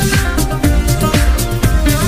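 Upbeat electronic dance music with a steady, fast beat.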